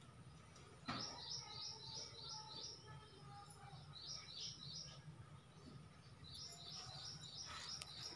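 A small bird chirping in quick runs of high notes, about four chirps a second, three runs in all. A single knock sounds about a second in, over a faint steady low hum.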